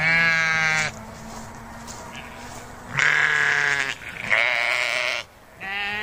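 Sheep bleating: three separate bleats of under a second each, a fourth starting near the end.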